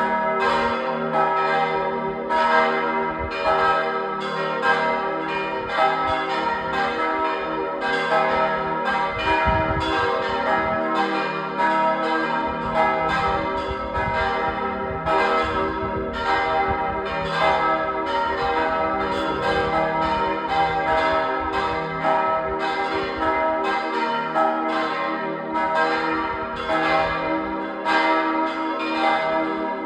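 A full peal of several church bells ringing together, with a continuous, uneven stream of overlapping strikes and long ringing tones.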